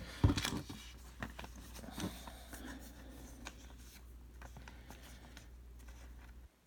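Trading cards being handled and flipped through by hand: soft rubs, flicks and light taps, with one louder knock just after the start. A low hum underneath cuts off suddenly near the end.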